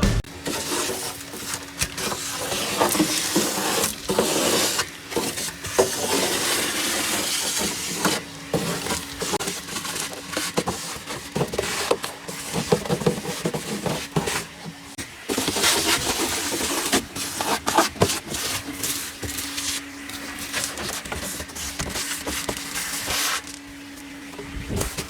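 Vacuum cleaner running with a steady motor hum and airflow hiss, over many small clicks and rattles as it works over a bare vehicle floor pan. The hum drops out about fifteen seconds in and returns a few seconds later.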